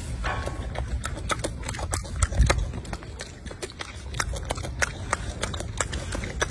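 Golden snub-nosed monkey chewing grapes close to the microphone: irregular sharp clicks and smacks, several a second, over a low steady rumble.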